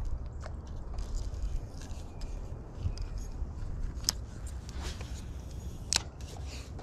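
A spinning reel and ultralight rod being handled, giving a few small, sharp clicks, the loudest about four and about six seconds in, over a steady low rumble.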